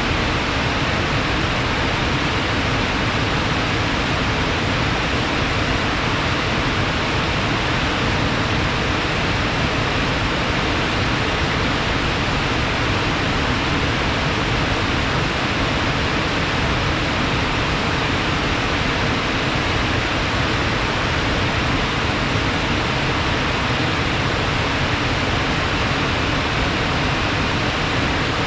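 Fast-flowing water rushing steadily after rain, a dense even roar with no breaks.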